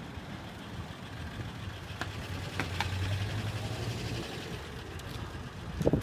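Street traffic: a vehicle engine hum that swells for a couple of seconds in the middle and fades again, with a couple of light clicks.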